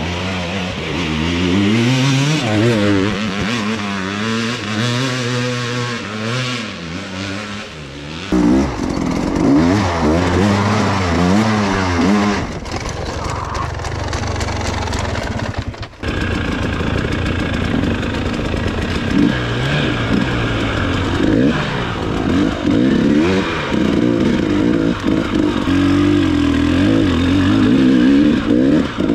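Dirt bike engine revving up and down under constantly changing throttle, rising and falling in pitch. The sound changes abruptly a few times, about 8, 12 and 16 seconds in.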